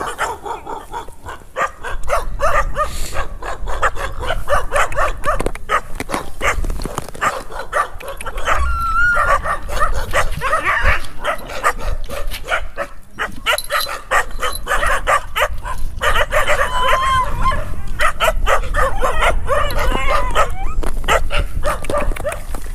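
Many chained sled dogs in a kennel yard barking at once, the barks overlapping without a break, with a couple of brief high whines about a third and three quarters of the way through. A low rumble runs underneath.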